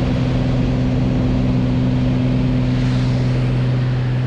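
Single-engine light aircraft's piston engine and propeller droning steadily in flight, heard from inside the cabin: a constant low hum over an even rush of air.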